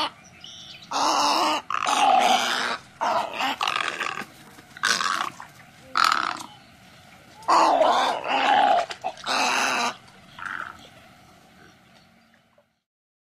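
Little egret giving a series of harsh, croaking calls, about ten short rasping notes spaced irregularly, with the last one fainter.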